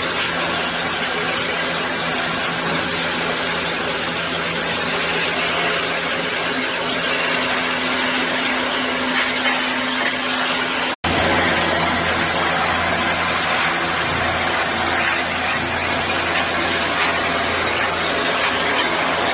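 High-pressure washer running with a steady spray hiss over a motor hum. It breaks off for an instant about eleven seconds in and comes back with a deeper hum.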